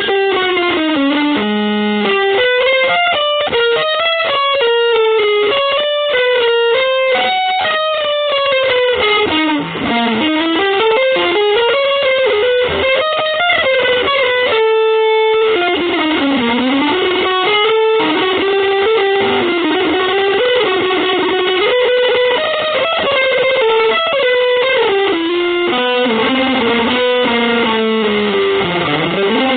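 Electric guitar playing a fast, winding single-note melody full of bends and slides, with a short held note about halfway through.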